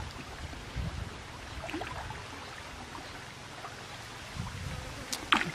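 Faint sloshing and lapping of muddy water around a person wading chest-deep, over a low steady rumble.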